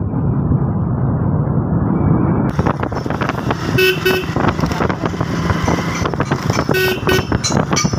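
Motorcycle riding with engine and wind rumble, and the motorcycle's horn beeping two short times about four seconds in and two short times again about seven seconds in.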